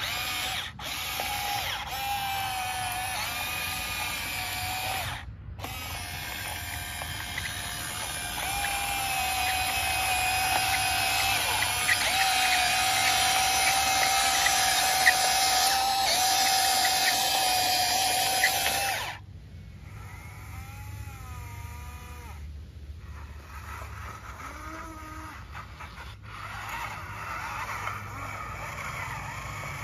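Huina RC excavator's electric motors whining as it digs and swings its boom and bucket, the pitch shifting as it moves. About two-thirds of the way through the loud whine cuts off suddenly, leaving a quieter small-motor whine that wavers up and down in pitch.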